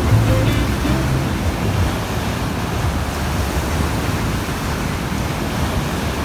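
Ocean surf at the beach: a steady rushing wash of breaking waves. The tail of background music fades out in the first second.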